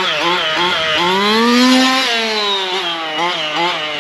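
ESP 30.5cc two-stroke race engine in a Losi 5ive-T 2.0 RC truck running at part throttle, its pitch going up and down: quick throttle blips, a longer pull that rises and falls in the middle, then more blips near the end. The engine is being run in on its second tank as a heat cycle.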